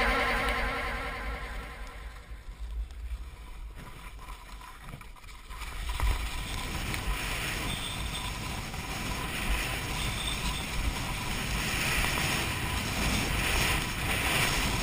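Background music fades out in the first couple of seconds. Then wind rushes and buffets over the camera microphone while snow kiting, a steady rush with low rumble that grows louder from about six seconds in.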